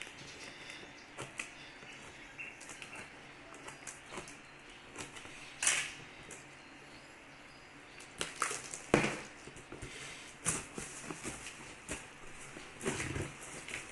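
Cardboard box and plastic packaging being handled and opened by hand: irregular rustling with scattered sharp clicks and knocks, the loudest about nine seconds in.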